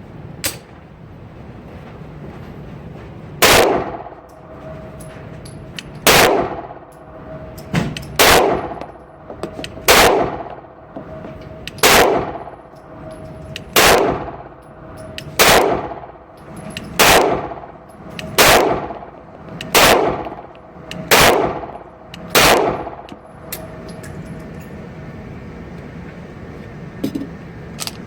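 Springfield XD subcompact 9mm pistol firing about a dozen single shots at a slow, steady pace, roughly one every one and a half to two seconds, each shot followed by a short echo.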